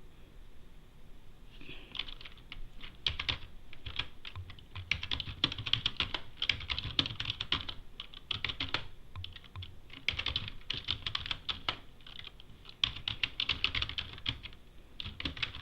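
Computer keyboard typing in quick bursts, starting about a second and a half in, with short pauses between runs of keystrokes.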